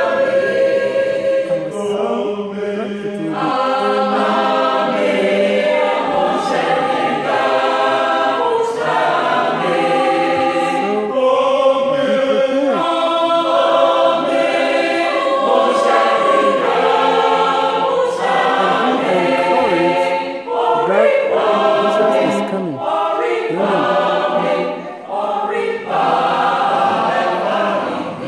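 Church choir of women's and men's voices singing a hymn together, holding sustained chords, with a couple of brief pauses between phrases near the end.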